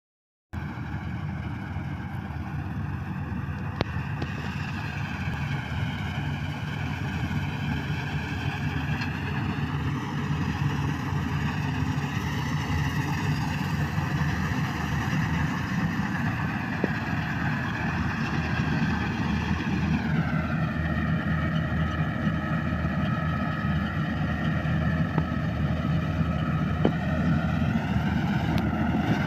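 Combine harvester running as it cuts wheat: a steady engine drone with a whine that drifts in pitch and drops about two-thirds of the way through, growing slowly louder.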